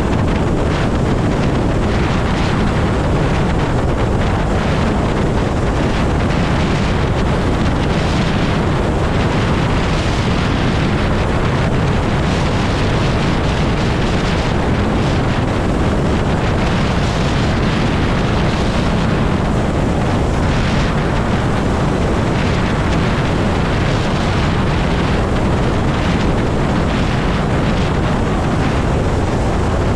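Wind rushing over the camera microphone of a Zero electric motorcycle cruising at highway speed: a loud, steady roar of rushing air with no engine note.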